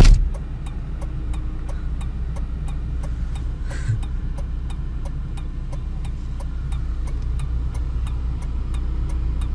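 A BMW car's engine idling, heard from inside the cabin, with the turn-signal relay ticking steadily about three times a second. A car door shuts with a thump right at the start.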